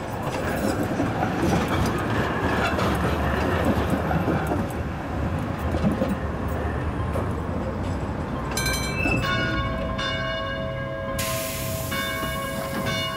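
A Tatra tram rumbling and clattering along its rails. About two-thirds of the way through, high steady squealing tones join in as it slows to a stop.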